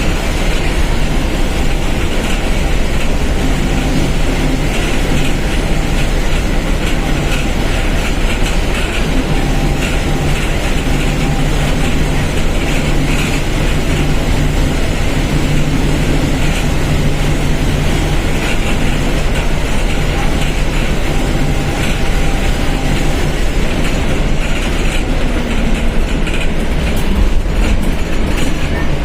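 Mercedes-Benz OF-1721 BlueTec 5 bus engine running while the bus is under way: a steady low drone over continuous rolling rumble and rattle.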